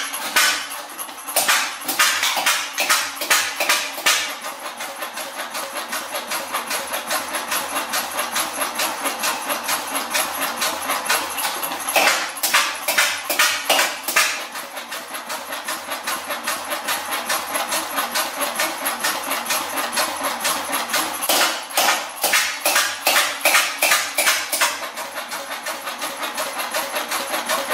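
Vintage MWM single-cylinder stationary diesel engine with a large flywheel, running with a steady rhythmic beat of firing strokes. Three times the beats turn louder and sharper for a few seconds.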